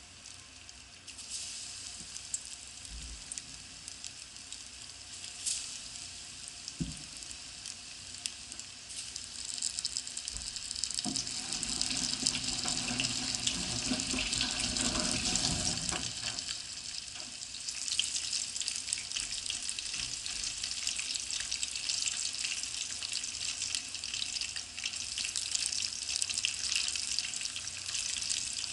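Battered tsuwabuki (giant leopard plant) shoots deep-frying in a pot of hot oil: a steady crackling sizzle that grows louder about ten seconds in, as the pot fills with more pieces.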